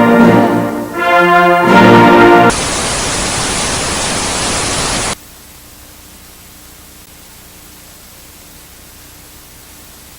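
Brass-led orchestral music that stops abruptly about two and a half seconds in, replaced by a loud burst of even static hiss. About five seconds in the static drops to a faint hiss with a low steady hum.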